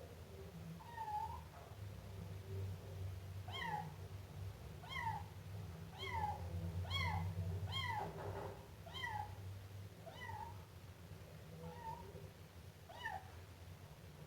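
Siamese kitten meowing repeatedly: about ten short, high meows, each falling in pitch, coming roughly once a second.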